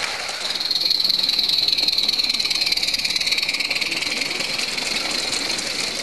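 Coaches of a 16mm-scale garden railway train rolling past close by, their wheels making a fast, steady rattle on the metal track.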